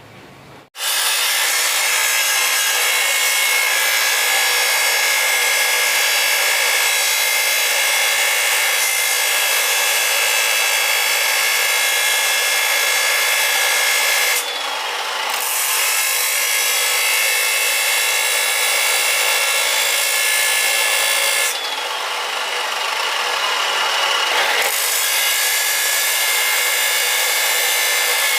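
Electric grinder running with a steady whine while grinding the tip of a steel drill bit to sharpen it; it starts just under a second in and eases twice, about halfway and again for a few seconds past two-thirds of the way.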